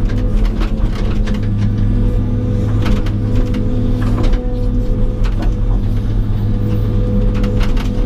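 John Deere 200 excavator's diesel engine running steadily under load, heard from inside the cab, with frequent knocks and rattles as the bucket works.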